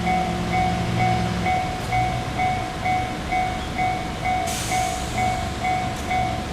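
Japanese level-crossing warning bell clanging about twice a second over the low rumble of an E351 series electric train running past. About four and a half seconds in, a sudden hiss starts and fades.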